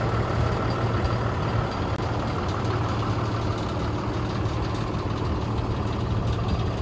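Cummins ISB diesel engine of a 2016 International 4300 dump truck idling steadily, with a constant low hum.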